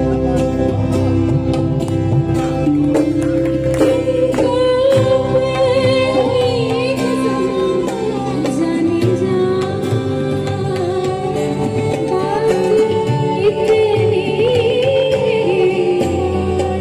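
Live music with singing over instrumental accompaniment: held notes underneath and a wavering melody line above.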